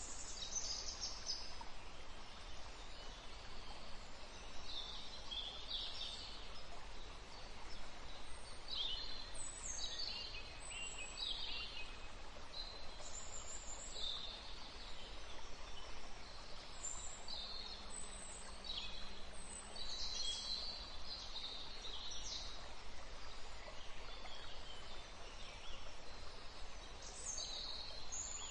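Small birds chirping: many short, high, downward-sliding calls at irregular intervals over a steady background hiss.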